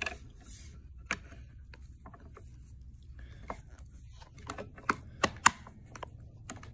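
Light metal clicks and clacks from the parts of a field-stripped Krebs Custom 9x39 AK pistol being handled at the open receiver, with three sharper clacks close together about five seconds in.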